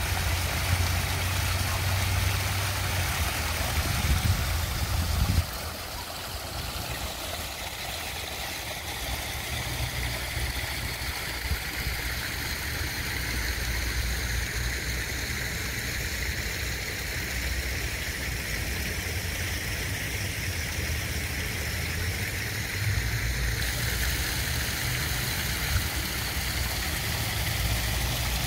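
Small rock waterfall splashing steadily into a garden pond, an even rushing hiss, over a low rumble. The rumble is heaviest for the first five seconds or so, then drops and wavers.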